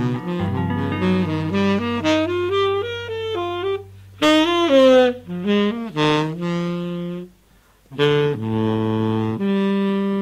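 Solo soprano saxophone playing a slow, winding melody over a long low held note, with a short break about seven seconds in before held notes resume.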